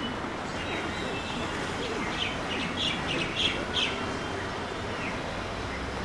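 Birds chirping: a quick run of short, high chirps about two seconds in, lasting a couple of seconds, over steady background noise.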